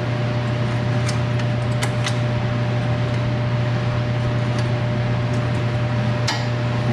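Steady low machine hum with a thin steady whine above it, the background of a workshop, and a few faint light clicks of hand tools on the suspension.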